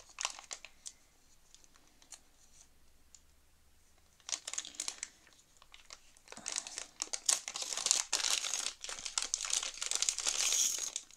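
Small clear plastic bag crinkling as hands work it open. It is quiet at first, with a short rustle about four seconds in, then steady crinkling from about six seconds on.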